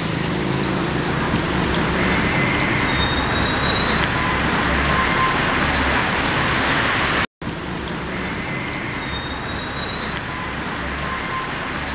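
Busy city road traffic: a steady rush of passing cars, buses and motorbikes. The sound drops out for an instant about seven seconds in.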